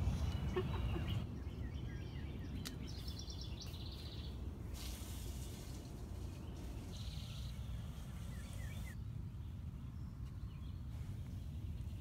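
Outdoor ambience: a steady low rumble with a few short bird chirps, and the background changes abruptly several times.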